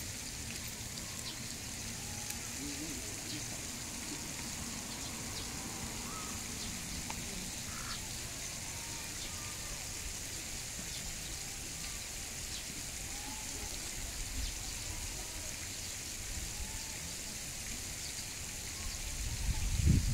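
Quiet outdoor ambience: a steady high hiss with faint short calls scattered through it, and a low rumble that builds up at the very end.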